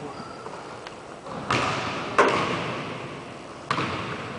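Basketball striking hard surfaces three times at uneven intervals, the middle thud the loudest, each one echoing at length around a large gymnasium.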